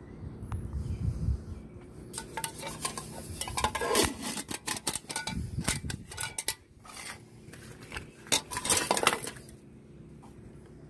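Swedish military mess kit being handled: the metal pot, lid and wire bail handle clink and rattle in irregular bursts, with a few sharp knocks of metal on metal.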